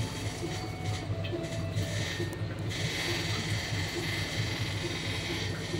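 A steady mechanical hum with a soft, regular pulse repeating a little more than once a second.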